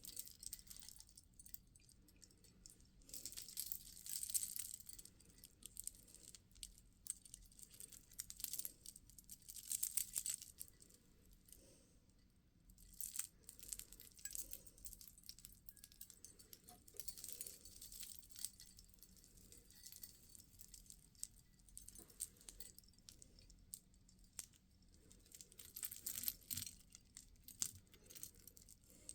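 Small beads clicking and clinking against one another as they are handled, in scattered spells of quick, light clicks with short pauses between.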